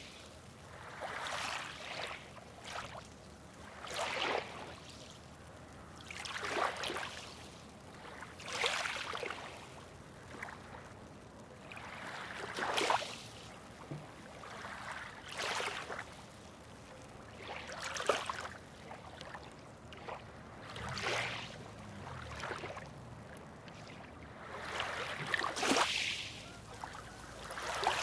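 Small waves washing in one after another, with a rush of splashing water every two to three seconds over a steady background wash.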